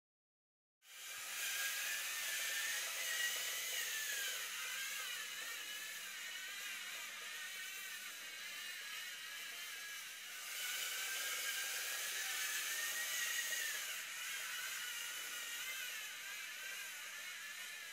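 LEGO Mindstorms NXT robot's motors driving its tracks, starting about a second in: a whirring whine that wavers up and down in pitch as the motors change speed, their speed set by the light on its sensors. It is louder for a few seconds past the middle.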